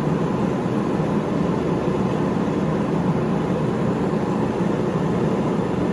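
Steady low rushing noise that stays even throughout, with no hammer blows or other sharp sounds.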